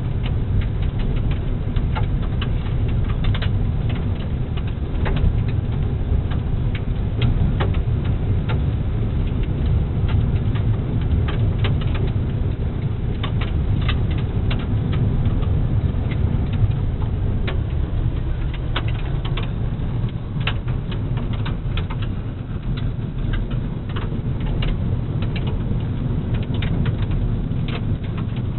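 A car driving on a gravel road, heard from inside the cabin: a steady low tyre and road rumble with frequent small sharp clicks of loose gravel flicking against the underbody.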